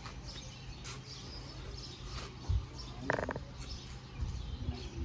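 Outdoor ambience: a steady low rumble with faint bird chirps, a dull thump about two and a half seconds in and a brief pitched sound about half a second later.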